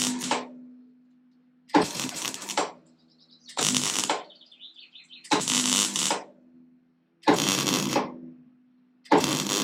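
MIG welder with CO2 shielding gas laying short stitch welds on thin sheet steel: five crackling bursts of about a second each, roughly every two seconds, with a steady low hum between them.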